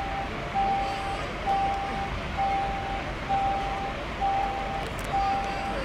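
An electronic warning beeper sounding one steady tone on and off, a little faster than once a second, over a continuous noise of running engines.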